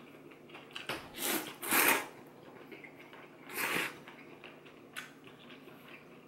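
Person eating rice noodles from a bowl of soup with chopsticks: three short, noisy slurps, the loudest about two seconds in and the last just before four seconds.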